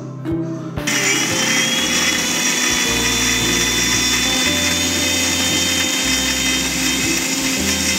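Electric mixer grinder switched on about a second in and running steadily at high speed with a thin whine, grinding garlic, ginger, spices and curd into a wet paste in its steel jar.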